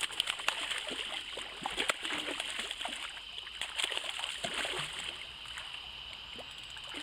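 A hooked fish thrashing at the surface close to the bank, a rapid run of splashes and water slaps over the first few seconds that dies down near the end as it is drawn in on the line.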